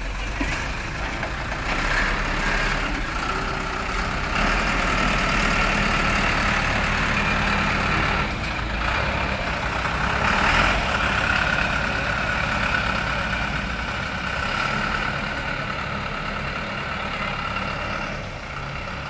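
Heavy diesel engine running steadily, with a steady higher whine over it through most of the stretch, easing off near the end.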